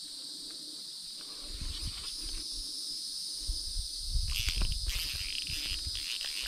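Steady high-pitched drone of a summer insect chorus. From about a second and a half in, low rumbling handling noise joins it, with louder rustling bursts about four seconds in, while the rod is being worked against a hooked fish.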